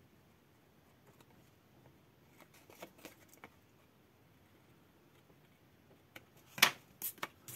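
Scissors snipping through patterned scrap paper: a few faint snips a couple of seconds in, then several sharper clicks near the end.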